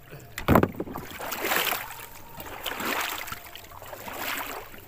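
Water sloshing and splashing around a person's legs as they wade through floodwater, a sharp splash about half a second in, then three more swishes roughly a second apart with each stride.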